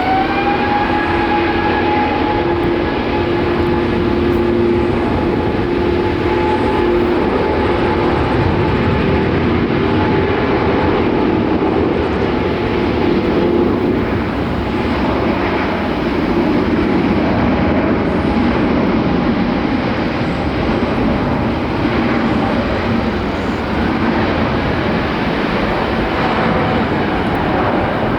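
Jet airliner engines running at high power. A whine that rises just before and levels off in the first second sits over a loud, steady roar, and a lower hum fades about halfway through.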